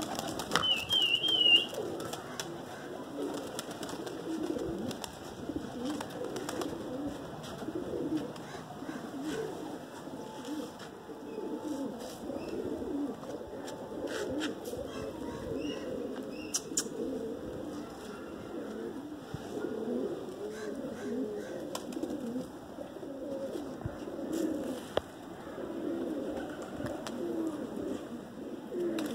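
Domestic pigeons cooing, many low throaty calls overlapping without pause. A brief high warbling whistle sounds about a second in.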